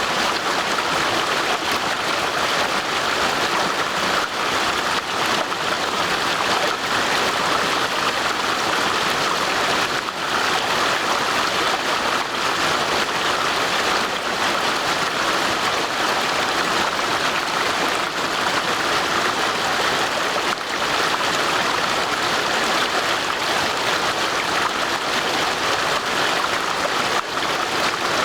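Stream water rushing and gurgling steadily over stones.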